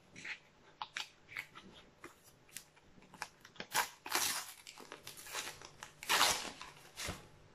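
A Panini sticker packet being torn open by hand, its wrapper crinkling and crackling. Short crackles at first, then two louder stretches of tearing about four and six seconds in.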